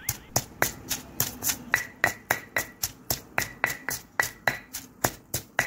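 Stone pestle pounding shredded herbs in a stone mortar: a steady rhythm of about three to four knocks a second, several with a short ringing note.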